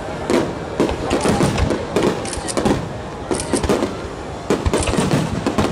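Aerial firework shells bursting in a dense barrage: an irregular run of sharp reports, several a second, overlapping one another.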